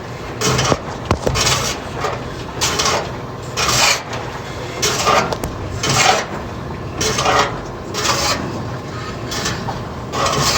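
General Electric washing machine scraping harshly as it washes, in rough strokes about once a second. The repairer puts it down to the tub having sunk to the bottom and rubbing, which he says is typical of this kind of washer after it has been lifted with a dolly.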